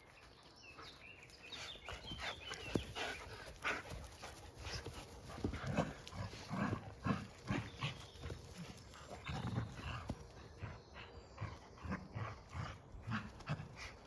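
Puppies and a small dog yapping as they play: an irregular string of short yips and barks.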